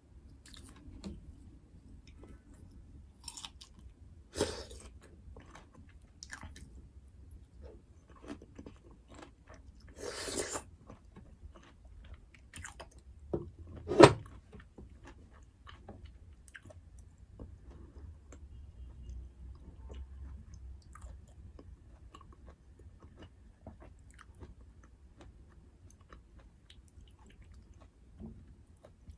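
A person chewing and biting food close to the microphone, with small wet crackles throughout and brief louder rustling bursts about four and ten seconds in. A single sharp click or knock about halfway through is the loudest sound.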